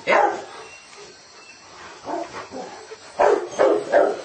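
A dog barking: one loud bark right at the start, two softer ones a little after the middle, and a quick run of three barks near the end.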